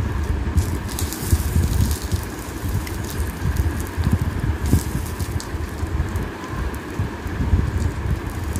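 Thick chickpea curry boiling in a pot: a dense, irregular run of low plops and pops from bubbles bursting in the gravy.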